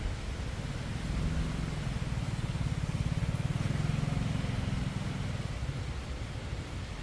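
A motor vehicle passing, its low engine hum swelling to a peak midway and then fading, over a steady background hiss.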